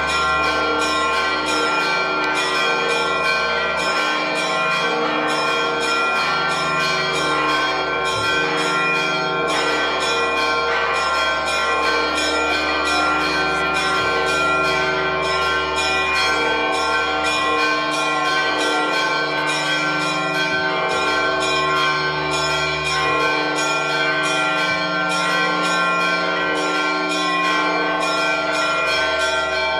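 Church bells ringing fast and continuously, strike after strike with the tones ringing on over one another: the festive peal that announces the Holy Fire.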